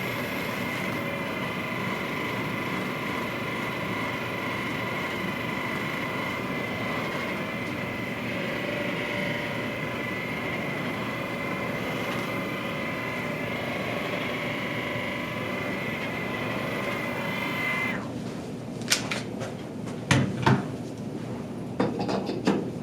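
A small electric motor running steadily with a whine, which cuts off sharply near the end, followed by a few short knocks and clicks.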